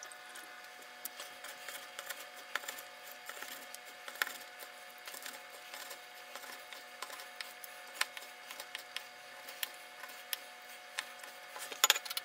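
Pocket-knife blade clicking and tapping against a plastic cutting board as chicken breast is sliced into thin strips, in scattered irregular taps. A few louder knocks come together near the end as the board is tipped against the pot's rim.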